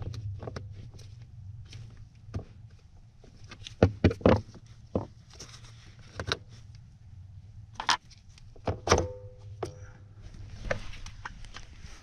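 Screwdriver prying the retaining clip off a Mercedes 190E accelerator pedal and working the pedal free: a run of irregular plastic and metal clicks and knocks, the loudest a few seconds in.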